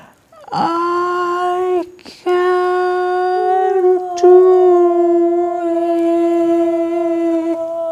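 A voice holding a long, steady 'ooh'. After a short opening note that slides up in pitch and a brief break, it is held for about five seconds. A sharp click cuts in about four seconds in.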